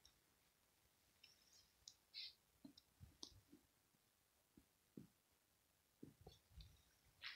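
Faint, scattered clicks and light scratches of cat litter as a cat in its litter box scrapes to cover its pee, with a few soft low thumps near the end.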